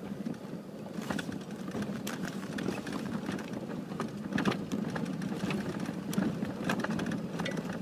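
Off-road vehicle's engine running steadily while driving over a bumpy dirt trail, with scattered knocks and rattles from the jolts.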